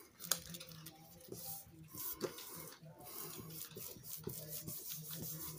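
Hands pressing and rubbing a kraft cardstock layer flat onto a glued card base: soft paper rustling and rubbing with scattered small clicks and taps.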